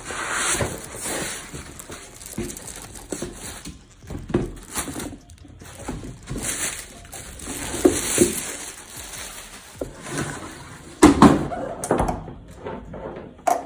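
Handling noise as a Mecer inverter is lifted out of its box: plastic bag rustling and crinkling and cardboard and foam packing rubbing, with scattered knocks. A louder thump comes about 11 seconds in as the unit is set down on the wooden floor.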